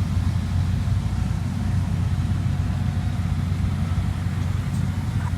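Rice combine harvester engine running steadily, a continuous low drone while it cuts the crop.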